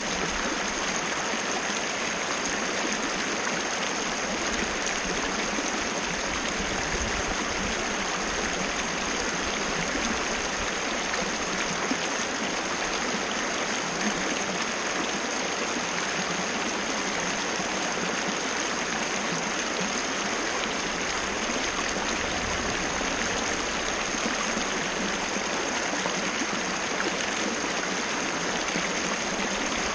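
Waterfall: water rushing and splashing in a steady, unbroken flow, with a thin steady high tone running underneath.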